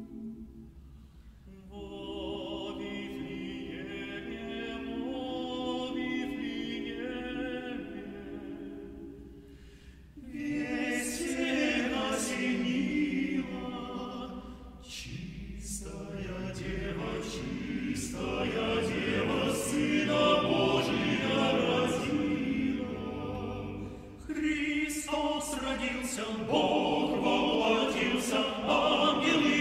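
Male a cappella vocal ensemble singing a Christmas carol in close harmony, with no instruments, in phrases with short breaks between them.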